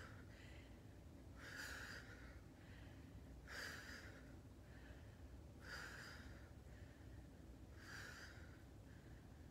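A woman breathing out hard as she lifts into each crunch: four faint exhales about two seconds apart.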